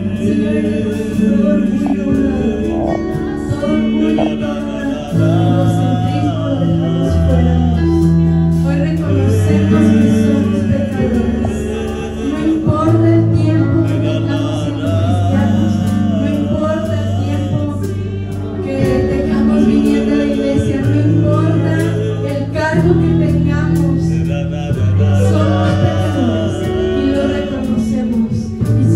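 A woman singing a worship song into a microphone over sustained electric keyboard chords, heard through the stage amplification, with the chords changing every second or two.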